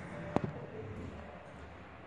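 ThyssenKrupp traction elevator car and machinery giving off a low, fading hum, with one sharp click about a third of a second in.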